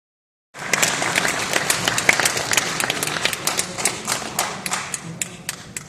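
Audience applauding. It starts about half a second in as a dense patter of clapping, then thins out to scattered single claps and fades near the end.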